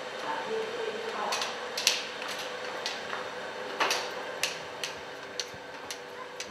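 Steady background ambience with a faint hum, broken by irregular sharp clicks and taps, the loudest about two seconds and four seconds in.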